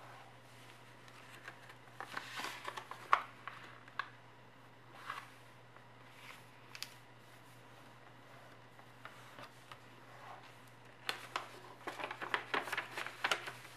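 A sheet of origami paper being folded and creased by hand: scattered crisp rustles and taps, then a quick run of crinkling rustles near the end, over a faint steady low hum.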